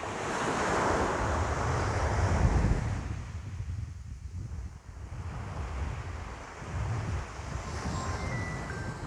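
Ocean waves breaking and washing in: a wave builds over the first second, peaks with a low rumble around two to three seconds and ebbs away, then a smaller wave follows. Faint chime tones come in near the end.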